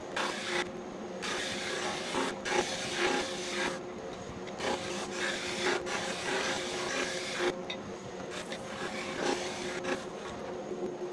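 JET drum sander running with its dust collection, a steady hum under a rasping sanding hiss as glued-up segmented wooden rings are fed through to flatten them. The hiss eases off briefly between passes, about every three to four seconds.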